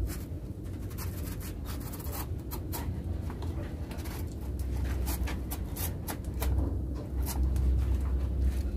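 Knife blade cutting a banana leaf on a wooden stump: a run of crisp scratching and ticking as the blade slices along and splits the leaf. A low rumble runs underneath, stronger in the second half.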